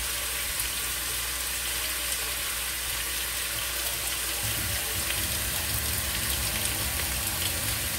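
Ground beef sizzling in a pot, with a kitchen tap running into the sink from about halfway through as hands are washed.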